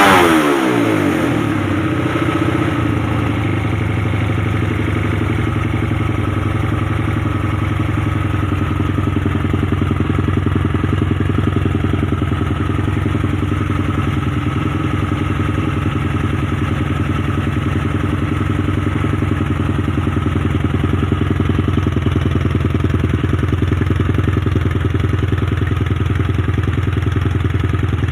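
Small liquid-cooled motorcycle engine, rebuilt with a 65 mm big-bore block and a 4 mm stroker rod, dropping back from a rev right at the start and then idling steadily.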